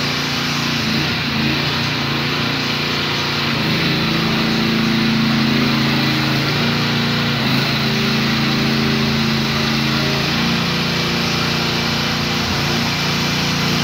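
A mini excavator's 13.5 hp Briggs & Stratton petrol engine runs steadily while the machine turns around on its rubber tracks. The engine note shifts slightly in pitch around the middle and again near the end.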